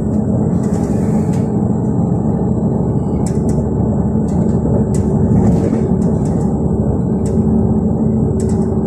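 Passenger train running at speed, heard from inside the carriage: a steady rumble with a low hum, and a handful of short clicks and knocks from the wheels and track.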